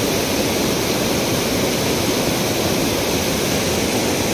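Fast-flowing mountain river rushing over rocks in whitewater rapids: a loud, steady wash of water.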